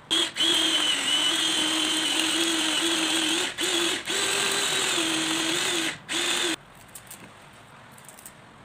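Small electric mini food chopper running in pulses as its blades chop carrot and garlic: a steady whirr with short breaks just after it starts, twice in the middle and once near the end, then it stops about two-thirds of the way through.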